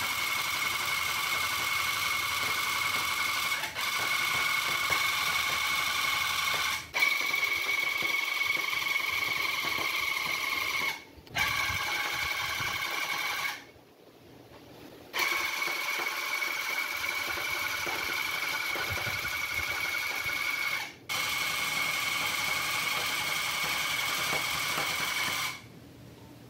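Electric tufting gun running, punching yarn into tufting cloth with a steady high-pitched whine. It runs in long stretches and stops briefly several times, the longest pause lasting about a second and a half around the middle.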